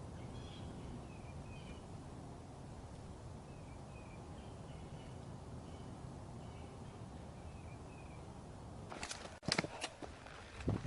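Birds chirping softly in short repeated notes over a steady low outdoor rumble; near the end, footsteps start up.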